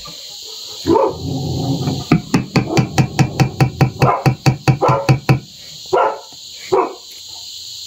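A dog barking in a rapid run of about five barks a second for several seconds, then two more single barks near the end, over a steady high chirring of insects.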